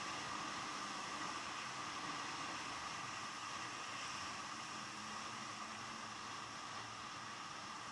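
Steady rush of wind and road noise from riding a KTM Super Duke GT motorcycle at speed, with little of the engine coming through.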